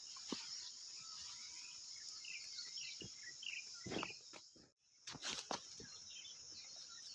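Steady high-pitched chorus of crickets and other insects, with scattered short bird chirps and a few brief rustles. The sound drops out for a moment about two-thirds of the way through.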